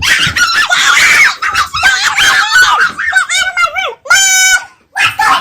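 Girls' voices screaming and yelling over each other in a heated fight, with one held high-pitched scream about four seconds in.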